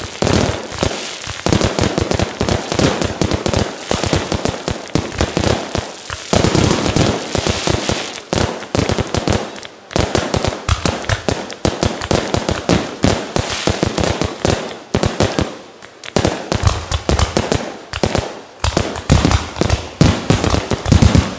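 Fireworks going off in quick succession: a dense string of bangs and crackles from bursting aerial shells, with a few short lulls.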